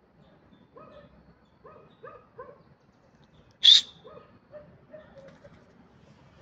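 Birds calling: a run of short, low, coo-like notes, about one or two a second, with one loud, sharp, high-pitched call a little past halfway.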